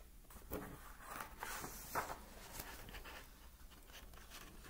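Pages of a picture book being turned by hand: a few faint paper rustles and soft knocks.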